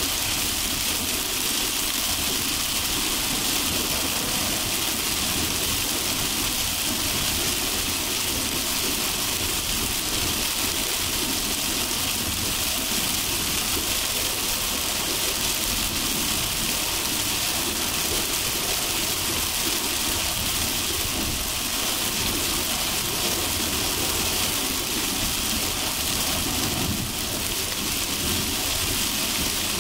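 Heavy rain on a car driving in a downpour: a steady, even hiss of rain, with the car's tyre and engine noise underneath.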